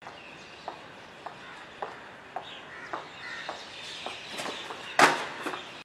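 Footsteps at a steady walking pace, about two a second, over outdoor background noise, with one louder knock near the end.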